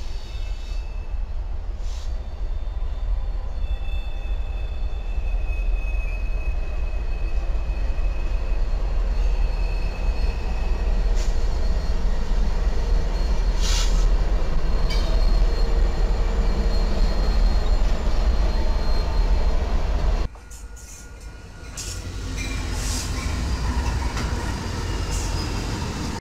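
Freight train cars rolling past on curved track: a steady low rumble with high-pitched wheel squeal and a few sharp clanks. About twenty seconds in it cuts off abruptly, and passing diesel locomotives then rise in level.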